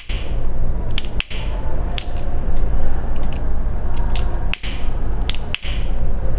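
A flint lighter clicking as it is struck and held to a thread end to melt it, a handful of sharp clicks at uneven spacing over a steady noise.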